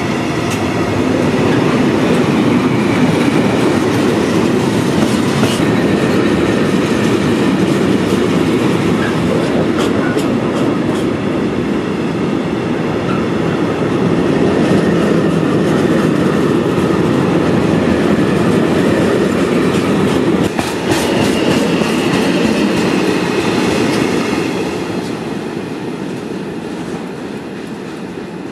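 Freight train of covered wagons rolling past close by: a steady rumble of steel wheels on rail with scattered clicks over the rail joints, fading away over the last few seconds.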